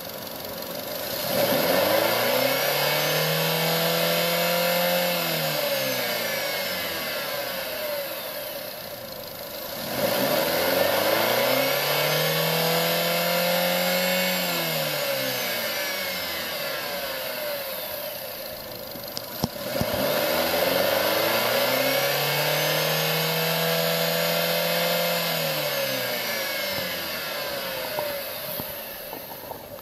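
Renault Laguna III's 2.0-litre 16-valve M4R petrol four-cylinder engine revved up three times, each time climbing over a couple of seconds, held high for a few seconds, then dropping back toward idle.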